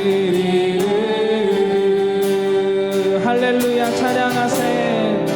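A group singing a worship song together, holding long notes, over instrumental accompaniment.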